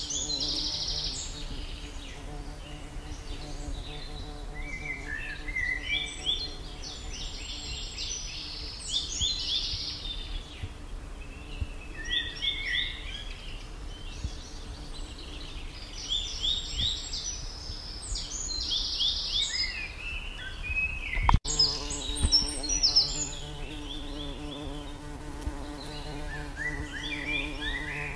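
Outdoor ambience: clusters of quick, high chirping calls every few seconds over a steady low hum, with one sudden thump about two-thirds of the way through.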